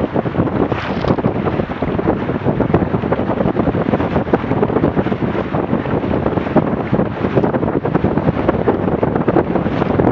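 Strong wind buffeting the microphone on a fast-sailing Weta trimaran, a loud, constant fluttering rumble mixed with rushing water.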